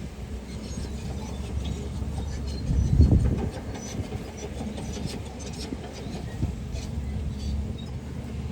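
Construction machine running with a low rumble that surges loudest about three seconds in, with light clicks and clanks over it.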